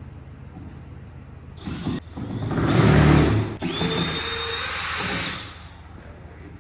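Power drill running in two spurts, backing out the bolts that hold a shipping crate together. The first spurt is louder; the second carries a steady high motor whine.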